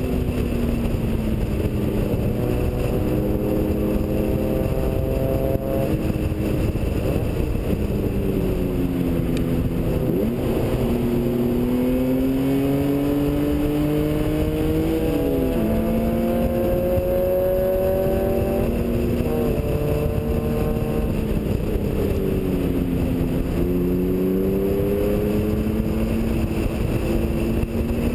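BMW E36 M3's straight-six engine pulling hard on track, its pitch climbing through each gear and dropping sharply at the upshifts. Partway through it falls away as the car slows for a corner, then climbs again as it accelerates out.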